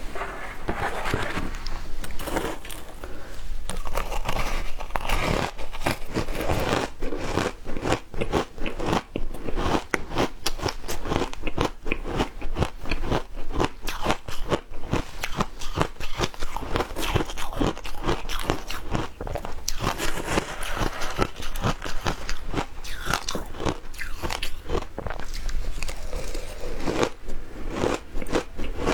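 Frozen matcha ice being bitten and chewed, close up: dense, irregular crunching and cracking of hard ice between the teeth.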